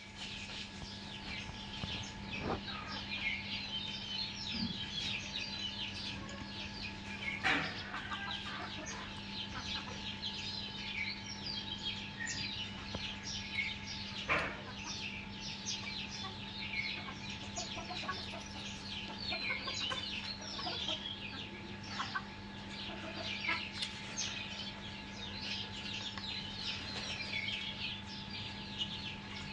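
A brood of native chicks peeping busily and without pause, many short high chirps overlapping, with a louder call now and then, around 7 and 14 seconds in. A steady low hum runs underneath.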